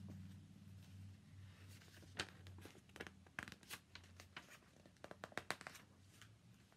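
Faint rustling and light clicks of a picture book's pages being handled and turned, a scatter of small crinkles through the middle and latter part, over a faint low hum.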